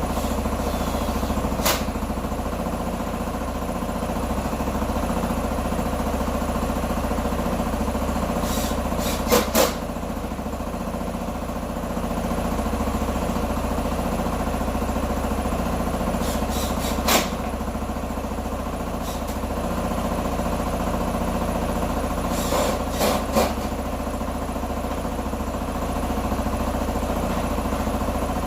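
A 125 cc motorcycle engine idling steadily, with a few sharp metallic clicks heard over it, one or two or three at a time.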